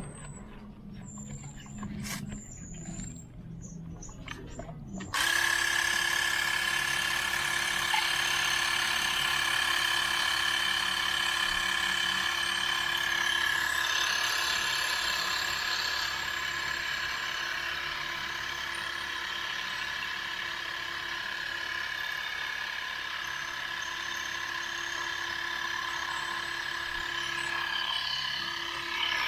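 Portable electric tire inflator switching on about five seconds in and running steadily, a constant motor whine with a high steady tone, pumping up the repaired tubeless tire.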